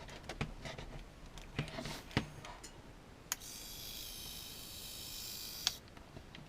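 Small WPL RC winch's electric motor and gearing whirring steadily for about two and a half seconds, switched on with a click about three seconds in and stopping with a click. It runs only while the transmitter control is held, in momentary mode. A few light clicks come before it.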